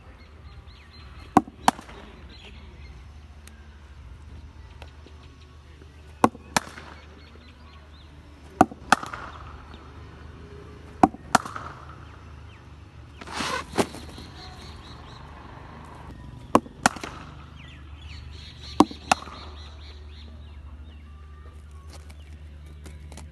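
Cricket bat hitting leather cricket balls during batting practice: sharp cracks, mostly in close pairs about a third of a second apart, coming about seven times every two to five seconds over a steady low hum.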